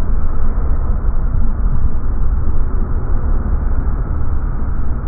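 Freight train of container wagons rolling past close by: a steady, deep rumble with no distinct wheel clacks.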